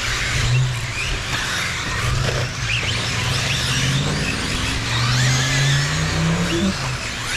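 1/8-scale electric RC buggies racing on dirt: brushless motor whines rising and falling as the cars accelerate and brake, over tyre and gravel noise. A low hum climbs steadily in pitch in the second half.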